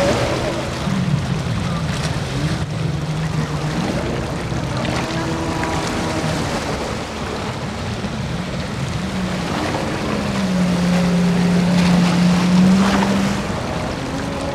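Jet ski engines running and revving over the water, with the hiss of spray and wind. The engine note rises about a second in and holds high and loudest from about ten to thirteen seconds in before dropping away.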